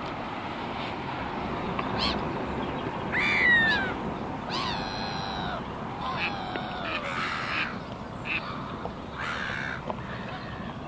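Birds giving a series of harsh calls, several falling in pitch, starting about two seconds in, over a steady hum of distant traffic.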